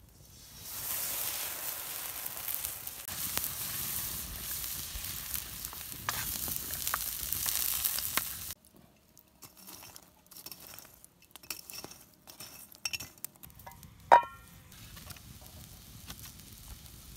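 Food frying in hot oil in a pan, a steady sizzle that cuts off suddenly about halfway through. After it come faint clicks of kitchenware and one sharp ringing clink.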